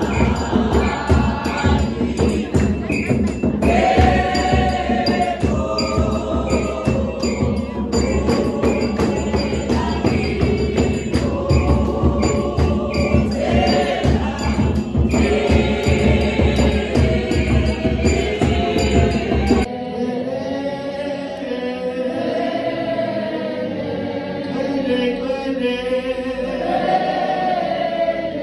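Church congregation singing a hymn together over a steady beat. About two-thirds of the way through it cuts abruptly to another stretch of group singing without the beat.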